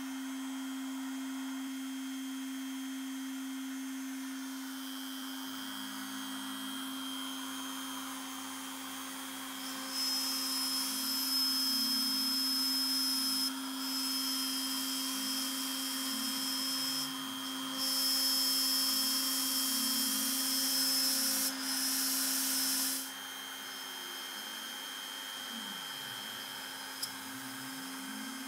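Trim router on a Shapeoko 3 XXL CNC machine spinning with a steady whine, stepper motors whirring up and down as the gantry moves. About a third of the way in, a loud hiss of the bit engraving the board starts, breaks off briefly a few times and stops near the end, leaving the router's hum.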